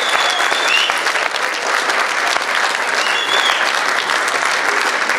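Audience applauding steadily, a dense clapping that holds through the whole stretch.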